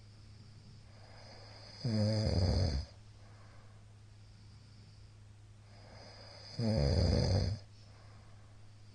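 A middle-aged man snoring loudly in his sleep: two loud, rattling snores, each about a second long and about five seconds apart, with quiet breathing between them.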